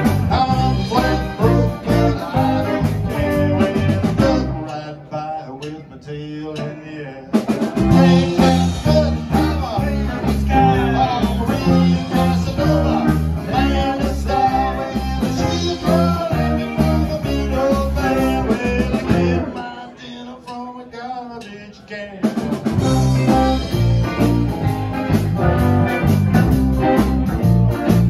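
Live band with electric guitars, bass and drums playing a bluesy rockabilly song. Twice, about five seconds and about twenty seconds in, the bass and drums stop for two to three seconds, leaving a thinner line before the full band comes back in.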